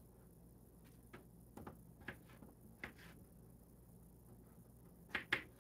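Knife cutting a potato on a plastic cutting board: scattered light knocks of the blade meeting the board, with a louder pair near the end.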